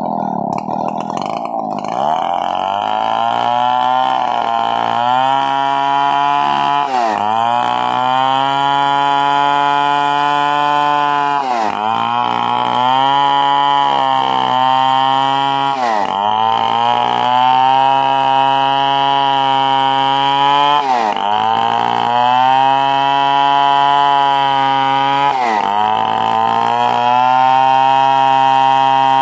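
Stihl 070 two-stroke chainsaw running at high revs, its pitch climbing up in the first two seconds. After that the engine note dips briefly and recovers about every four to five seconds.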